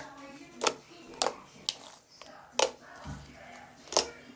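Fluffy slime being squished and poked by hand, making about six sharp, wet pops, with a dull thump about three seconds in.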